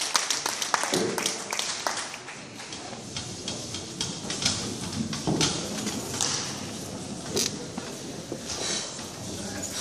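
Crowd sounds in a large hall: scattered handclaps, thickest in the first two seconds, with indistinct voices calling out.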